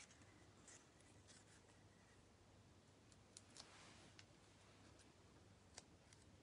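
Near silence, with a few faint, scattered ticks and light rustles of card and paper pieces being handled and pressed down.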